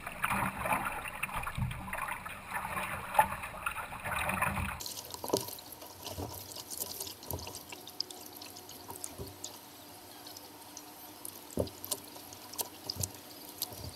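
Water splashing and dripping around a kayak being paddled. A dense wash of splashing for about the first five seconds cuts off abruptly, giving way to quieter, scattered drips and small splashes.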